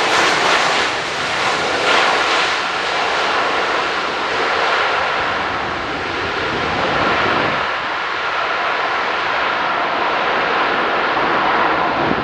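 Boeing 737-800's CFM56 turbofan jet engines running loud on the landing roll, a steady roar with a whine in it. The roar grows duller over the second half as the airliner moves away down the runway.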